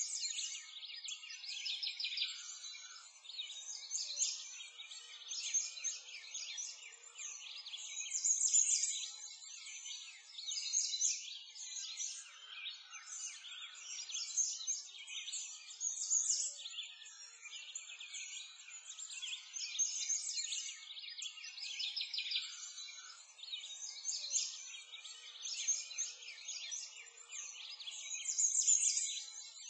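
Many songbirds chirping and trilling at once in a dense, continuous chorus of high-pitched calls, with no low sounds beneath it.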